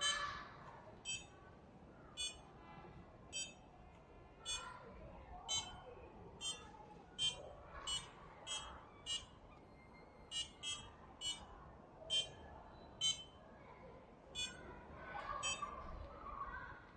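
Arduino-driven passive piezo buzzer giving short, sharp electronic beeps at irregular intervals, about one a second and sometimes faster, each beep triggered as a hand moves to a distance segment in front of an ultrasonic sensor.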